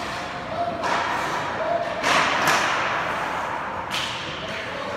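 Ice hockey pucks and sticks striking: a few sharp cracks and thuds, the loudest pair a couple of seconds in and another near the end, each ringing on in the rink's large hall.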